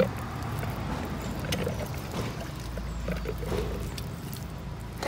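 Wet squelching and soft slapping of hands massaging masala paste into a whole raw chicken, with small irregular clicks.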